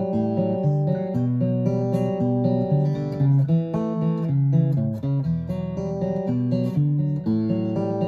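Martin DRS-1 Road Series dreadnought acoustic guitar with a solid sapele top, played solo: chords picked out note by note in a flowing pattern, the notes ringing over one another.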